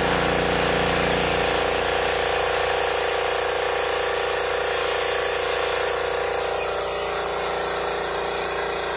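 Pressure washer running steadily, its motor humming under the hiss of the water jet spraying onto wooden deck boards.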